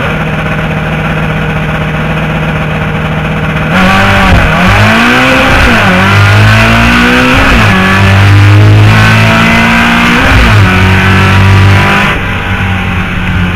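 A drag racing car's engine runs at a steady idle, then about four seconds in it gets much louder and revs, its pitch climbing and dropping several times. Near the end it settles back to a steady note.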